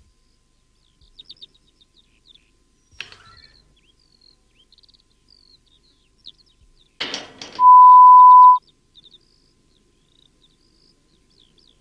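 Faint birdsong, small chirps throughout. About seven seconds in, a short burst of sound is followed by a loud steady beep lasting about a second: a censor bleep over a swear word.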